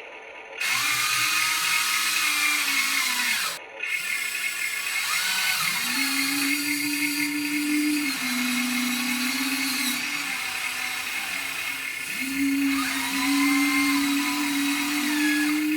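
Small electric motors and gearboxes of a Huina 1593 1/14-scale RC excavator whining as its functions are driven. It comes in several spells, each winding up in pitch, holding steady and winding down, with a brief cut-out near the start.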